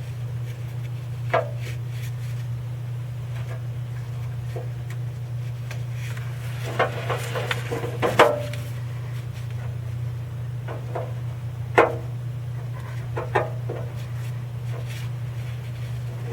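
Hand tools and parts being handled while working on the engine: scattered small knocks, clicks and clinks, with a cluster of them about halfway through, over a steady low hum.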